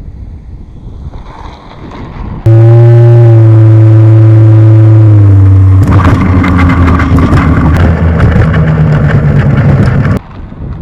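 Twin-propeller RC model plane heard from a camera on board: a loud, steady propeller drone that steps slightly down in pitch, then turns rougher and crackly with wind buffeting the microphone. It starts and stops abruptly.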